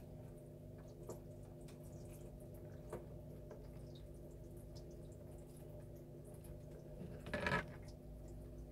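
Steady low hum of several fixed pitches with a few faint clicks, and a brief rustle about seven and a half seconds in.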